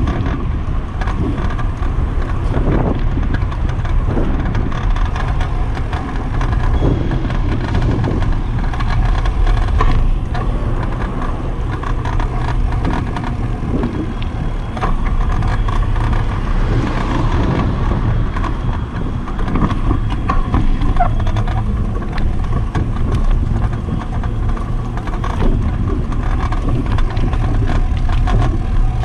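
Wind rushing over the microphone of a camera mounted on a moving bicycle, with a steady low rumble from the tyres on the pavement and frequent small rattles and knocks from the bike.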